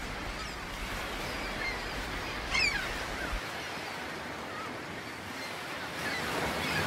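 Steady wash of sea surf with a few scattered bird calls, the clearest about two and a half seconds in.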